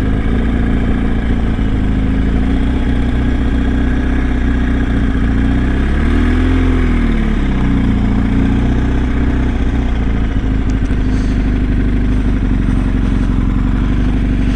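BMW R1250 GS boxer-twin motorcycle engine running steadily while being ridden, its note rising and falling once about six seconds in.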